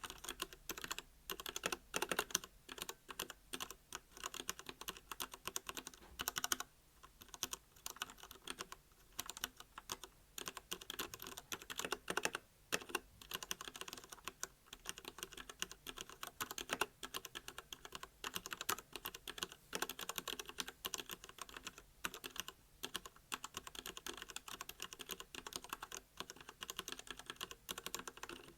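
Continuous typing on a Royal Kludge RK68 mechanical keyboard with linear red switches: a quick, uneven stream of key clacks, with a couple of brief pauses.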